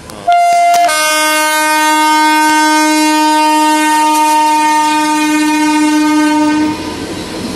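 Indian Railways WAP-7 electric locomotive's air horn sounding as the train runs through: a brief single note, then a loud, several-note blast held for about six seconds that stops shortly before the end, leaving the rumble of the passing train.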